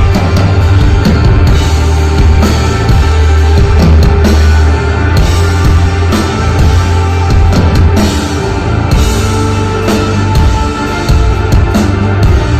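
Rock band playing live and loud: a drum kit with frequent cymbal and drum hits over a heavy, sustained bass line.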